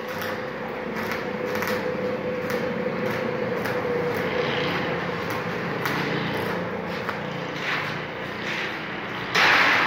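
Electric arc welding on the steel bars of a grill gate: the arc crackles and hisses steadily, with many small sharp pops, and a louder burst of crackle near the end.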